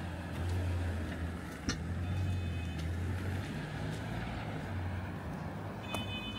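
Low engine rumble of road traffic on a city street, with a sharp click a little under two seconds in. Two short high-pitched tones sound, one about two seconds in and one near the end.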